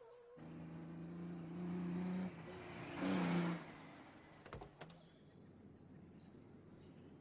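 A vehicle engine running in two stretches, the second shorter and louder about three seconds in, followed by a couple of faint clicks and low background noise.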